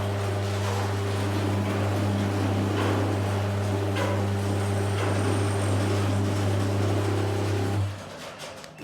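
Boss BOL4 garage door opener's motor running with a steady hum while it drives the door, with a few faint clicks. It cuts out about eight seconds in.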